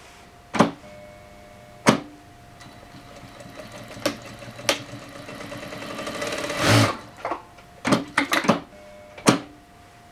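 Brother DB2-B737-405 industrial single-needle lockstitch sewing machine with E40 motor, humming steadily with sharp mechanical clicks. It stitches a short run that builds to its loudest about seven seconds in and then stops, followed by a quick cluster of clicks and one last click.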